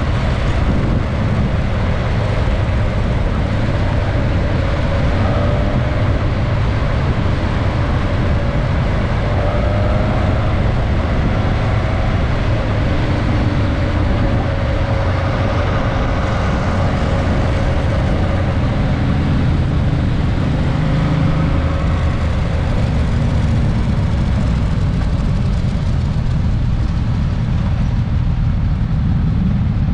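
Suzuki GSX-S1000S Katana's inline-four engine running steadily under way, its pitch drifting gently, heard from an onboard camera under heavy wind rumble.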